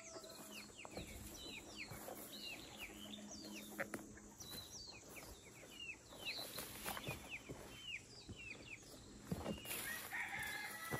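Free-range chickens clucking and calling, with many short, high, falling chirps throughout. A rooster crows near the end.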